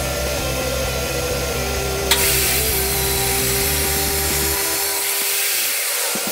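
Portable jobsite table saw running, its blade biting into a thick cherry end-grain cutting board with a sharp click about two seconds in and then cutting steadily. This is a light trimming pass on the board's short edge, taken light to keep the end grain from burning.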